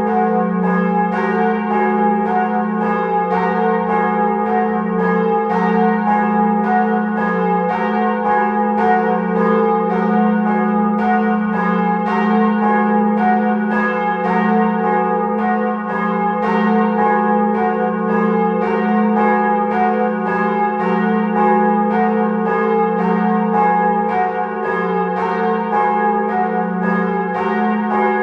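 Church bells ringing a continuous peal, with strikes about twice a second, each one ringing on into the next.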